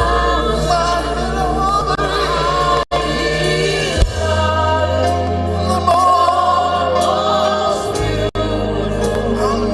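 Live gospel music: a choir and lead voices singing over a held bass and keyboard accompaniment, with two very brief dropouts in the sound.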